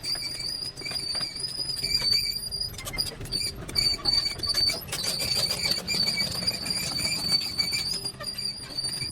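Excavator's diesel engine running steadily, with scattered knocks and clatter of the bucket working among large stones. A high, unsteady whistling tone keeps cutting in and out over it.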